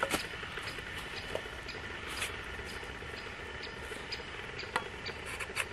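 Small wood cooking fire hissing steadily under bread toasting on a metal grate, with a few sharp crackles and pops. A faint high tick repeats about twice a second.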